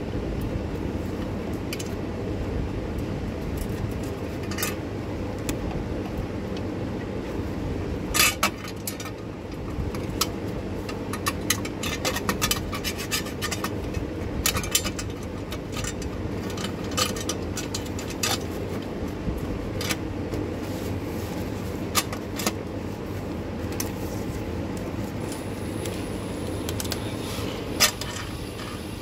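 Scattered light metallic clinks and taps of steel bolts and a socket extension being handled while bolts are started by hand under the engine, over a steady low hum.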